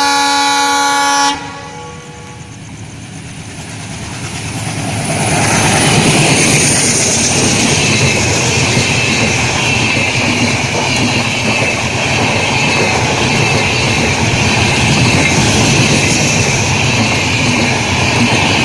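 A locomotive horn sounds one loud blast of about a second and a half at the start. The train's noise then builds over a few seconds and becomes a loud, steady rumble with wheel clatter as the train runs through the station.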